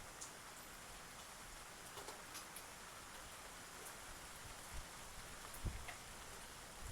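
Eurasian tree sparrow pecking at seed: faint scattered ticks and light taps over a steady hiss, with a dull knock a little before the end.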